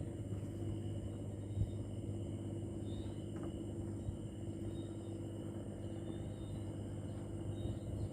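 A steady low engine hum that holds one pitch throughout, with faint, scattered high insect chirps over it.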